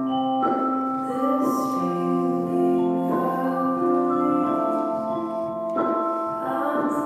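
Slow music with long held notes that change about every second, and a singing voice at times.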